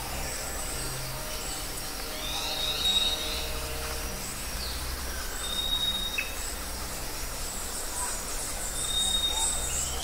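Open-air ambience: birds calling with thin high whistles and chirps, over a steady low rumble.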